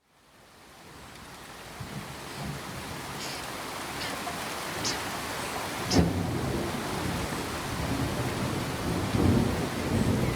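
Steady rain falling, fading in over the first couple of seconds. Heavy close drops or thumps sound through it, the loudest about six seconds in and more near the end, with a few brief high chirps in between.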